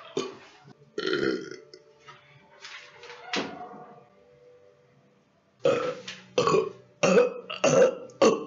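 A man's voice making short non-speech vocal noises in separate bursts: a few spaced out at first, a pause, then a quick run of about six near the end.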